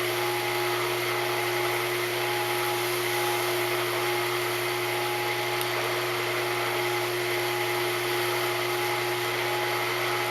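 Wood lathe spinning a turned hardwood spice grinder at speed during the final oiling, a steady motor hum and whine over an even hiss.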